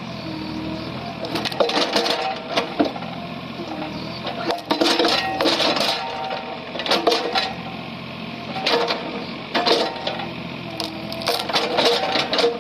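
Mini excavator's engine running steadily, with repeated bursts of clattering every second or two as the machine works.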